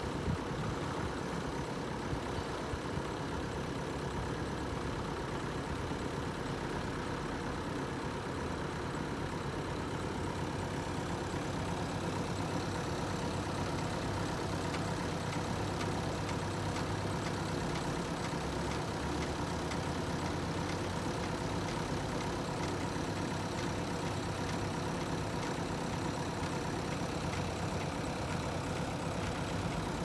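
Diesel engine of a JCB backhoe loader running steadily at an even speed.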